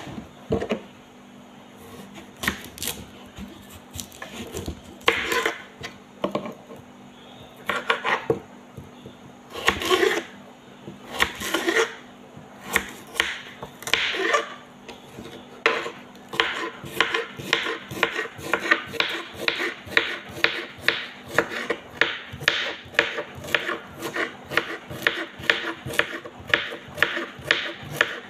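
Kitchen knife cutting a green vegetable on a wooden cutting board. Scattered single cuts at first, then steady chopping at about two strokes a second through the second half.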